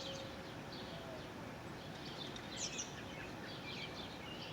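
Small birds chirping faintly in short scattered calls over a steady outdoor hiss, with one slightly louder chirp about two and a half seconds in.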